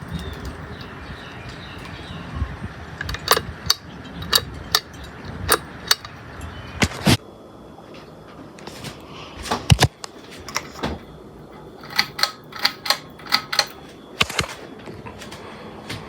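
Ceiling fan running with a steady whir, over which come many sharp clicks, in runs of several. About seven seconds in the whir drops to a quieter level.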